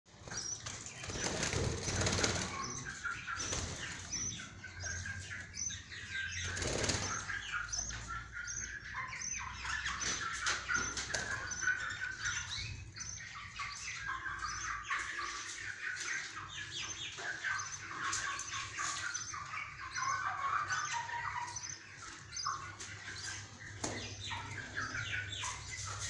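A flock of budgerigars chattering and chirping without pause, with a few louder bursts of fluttering wings.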